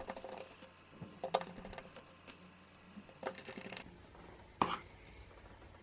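Faint, sparse clicks and taps of small screws and a precision screwdriver against a smartphone's internal frame as its speaker cover is screwed down, about one click a second.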